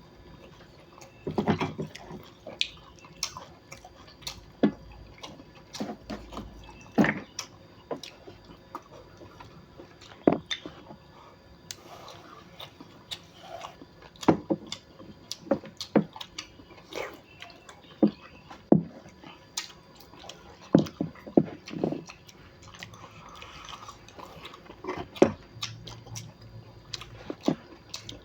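A person chewing and biting crunchy pork sausage with cartilage: sharp, irregular crunches a second or two apart, some louder than others.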